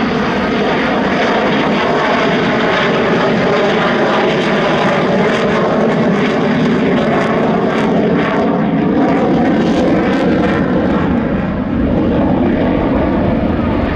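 Polish Air Force F-16's Pratt & Whitney F100 jet engine roaring at high power as the fighter accelerates and climbs, with a ragged crackle in the middle of the pass.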